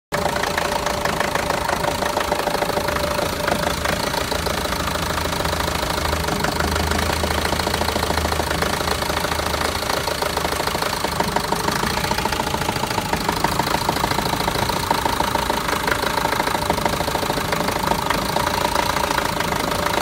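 Renault Master van engine running steadily at idle with an even, rapid pulse. It has a misfire fault, logged as DF065, that four new injectors have not cured, and the owner does not know the cause.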